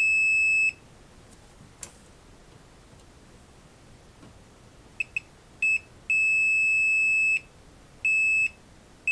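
Multimeter continuity beeper sounding as its probes touch vias on a motherboard: a short beep at the start, a few brief broken blips about five seconds in as contact catches, then a steady beep of over a second and another short one near the end. The beeps show continuity through the repaired via to the far side of the board.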